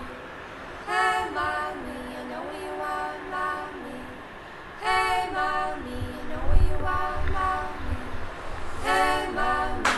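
Background music: held, horn-like chords and sustained notes, a fresh phrase coming in about every four seconds.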